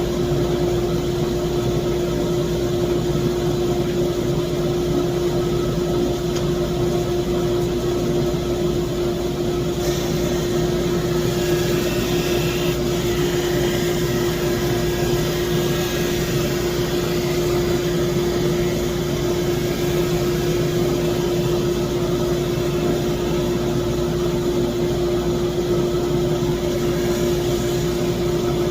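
Laguna SuperMax 25-50 drum sander running with a steady hum. From about ten seconds in until near the end a higher hiss of sanding joins it as a board passes under the drum.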